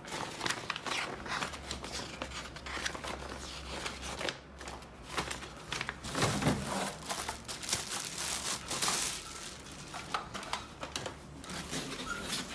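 Clear plastic packaging bag crinkling and rustling, mixed with paper and cardboard being handled, as a new vacuum cleaner is lifted out of its box. The crackling is irregular and continuous, loudest around the middle.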